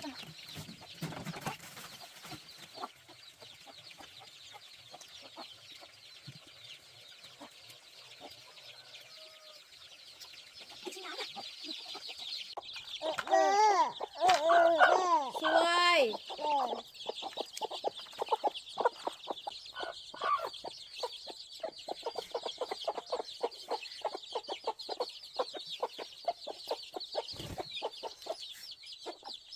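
Chickens clucking, with a burst of loud squawking calls about halfway through, over a steady high-pitched buzz.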